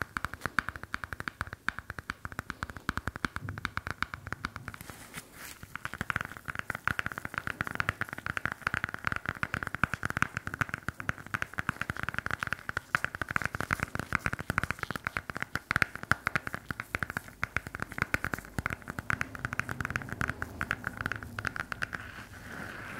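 Rapid tapping on a hard object close to the microphone as an ASMR trigger: many quick taps a second, continuous apart from a brief let-up about five seconds in.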